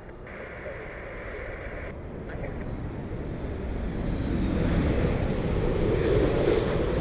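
Jet airliner on approach, its engine noise growing steadily louder as it nears, with wind buffeting the microphone.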